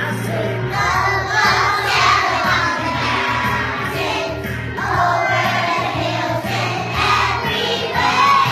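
A group of young children singing a Christmas song together over instrumental music accompaniment, in sung phrases of a few seconds each.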